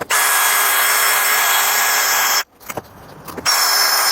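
Electric drill spinning a 2000-grit sanding pad, wet-sanding a plastic headlight lens: a steady high motor whine with a gritty hiss. It stops about two and a half seconds in and starts again about a second later.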